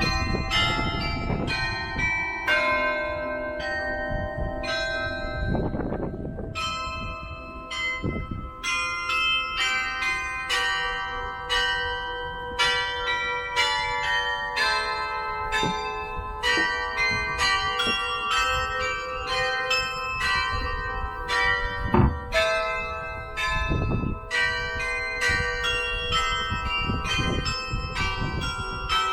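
Cathedral carillon playing a melody: many tuned bells struck one after another in quick succession, their tones ringing on and overlapping.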